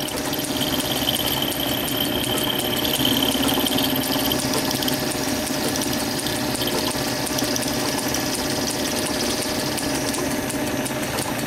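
Small lathe running with a 4 mm end mill in its chuck, milling a steam-port slot in a brass block on the vertical milling attachment: steady motor and drive hum, with a thin high whine over the first four seconds or so.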